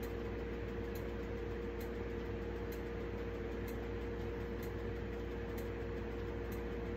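Steady room hum with a few steady tones in it, and a faint tick repeating about once a second.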